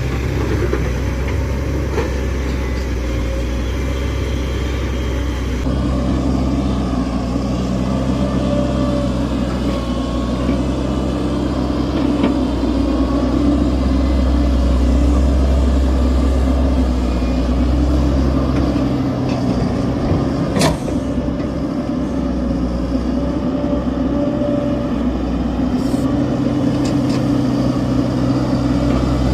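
Large excavator's diesel engine running steadily, with a deep rumble. The engine note changes abruptly about six seconds in, and there is a single sharp knock about two-thirds of the way through.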